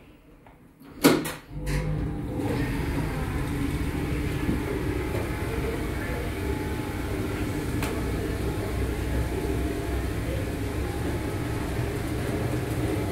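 A hold-to-run platform lift starting off with a sharp clunk about a second in, then its drive running with a steady low hum as the car travels up.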